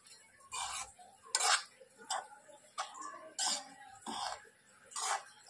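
Metal spoon scraping and knocking against a nonstick kadai while stirring a crumbly grated-paneer stuffing: about seven short strokes, a little more than one a second.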